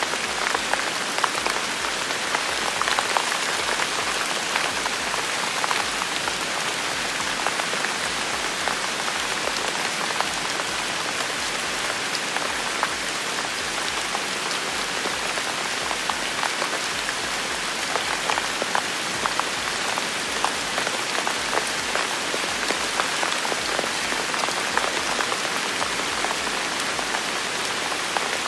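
Steady rain falling: an even hiss dotted with many single drops striking.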